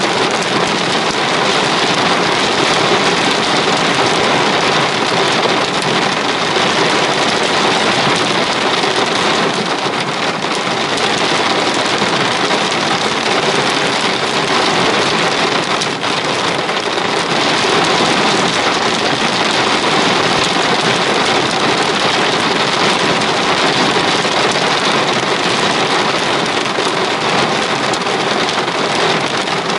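Torrential rain falling in a loud, steady, unbroken hiss.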